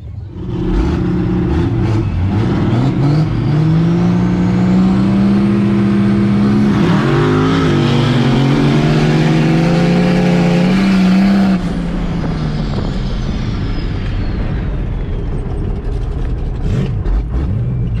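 Diesel drag truck at full throttle down the sand track: the engine revs up about a second in, breaks pitch on a shift near the middle, holds hard until it lets off sharply two-thirds of the way through, then fades away with a falling tone.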